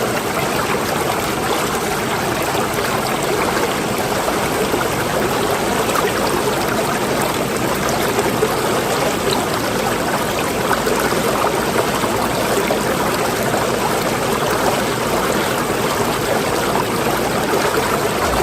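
Water rushing and washing steadily, an even noise without pauses.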